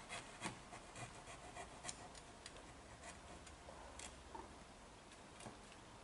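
Faint, irregular taps and knocks of hand work on wooden tile battens laid over roofing underlayment: a scatter of sharp clicks at uneven spacing.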